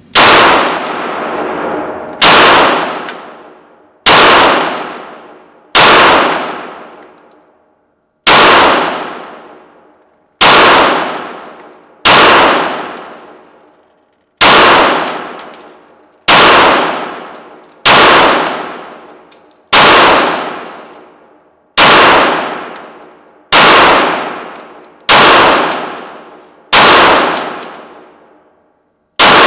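Smith & Wesson M&P9L Pro CORE 9mm pistol fired in slow, deliberate single shots, about one every two seconds, some sixteen in all. Each sharp report echoes long off the walls of an indoor range.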